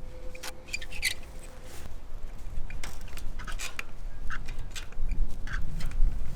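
Irregular light clicks, scrapes and rustles from handling a wire sheep fence and a fence pole during a repair. A low rumble builds near the end.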